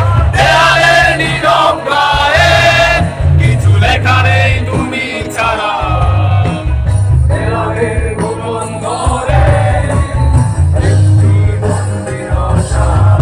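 A rock band playing live: electric guitars, drums and a heavy bass under a singing voice.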